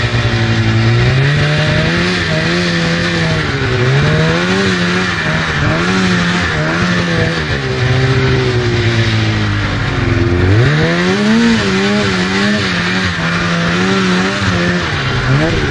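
2004 Polaris RMK 800 snowmobile's two-stroke twin engine being ridden, its revs rising and falling with the throttle. The engine speed drops low about ten seconds in, then revs sharply back up.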